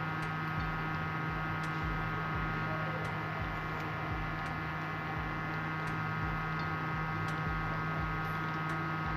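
Steady electrical hum made of several steady tones, with faint ticks a little over a second apart.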